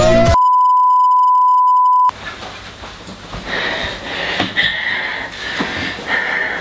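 A loud, steady electronic beep at one pitch, lasting about two seconds and cutting off sharply, just after a song stops. After it comes quiet room noise with a few faint knocks.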